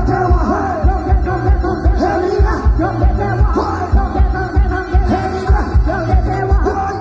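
Loud dance music with singing, played through the stacked loudspeakers of a small Thai parade sound-system truck (rot hae), over a heavy, fast, regular bass beat.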